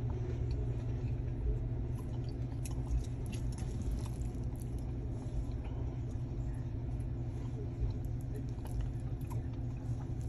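Steady low hum of an idling car heard inside the cabin, with faint scattered clicks from a plastic fork picking at food in a foam takeout box, and some chewing.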